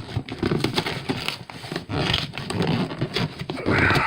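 A packaging box being pried and cut open with a knife at its glued seams: irregular scraping, rustling and tearing, loudest near the end.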